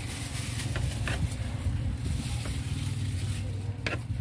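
A steady low engine rumble, with a few light clicks and scrapes as a knife works along a yellowfin tuna's backbone.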